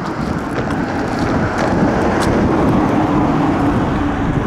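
A motor vehicle's engine running, heard as a loud rumbling noise with a steady hum that swells about halfway through.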